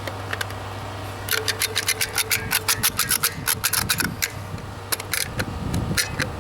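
Hand caulking gun being pumped to squeeze out adhesive caulk: a rapid run of sharp ratcheting clicks, about five a second, starting about a second in and lasting about four seconds, over a steady low hum.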